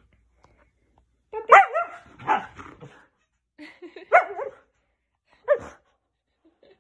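Siberian husky vocalizing in about four short, wavering outbursts, the grumbling protest of a husky angry at just having been given a bath.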